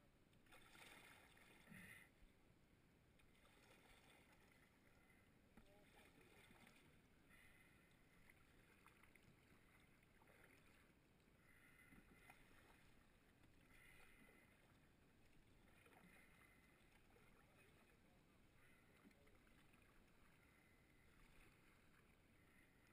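Faint canoe paddle strokes dipping and splashing in the river, about one every two seconds, over a low steady hiss.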